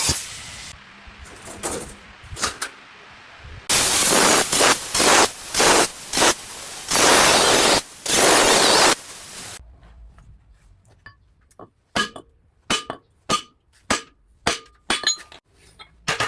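Workshop tool and metal sounds: a string of loud noisy bursts, each half a second to a second long, then a run of sharp metallic taps and clinks that ring briefly.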